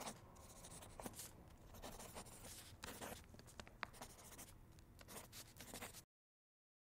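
Drawing sound effect of a pen scratching and scribbling in short strokes, with a few small clicks. It stops abruptly about six seconds in.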